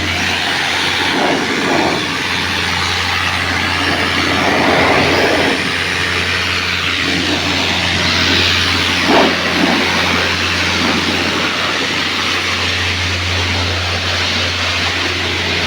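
A machine running steadily: a constant low electric hum under a loud, even rushing noise, swelling briefly a few times.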